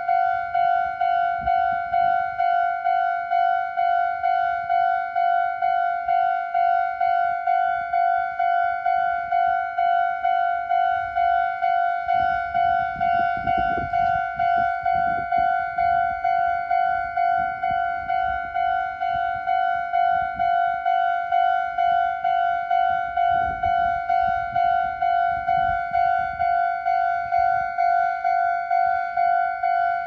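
Japanese railway level-crossing alarm ringing: an electronic bell tone repeating evenly about twice a second, the warning that the crossing is closed for an approaching train.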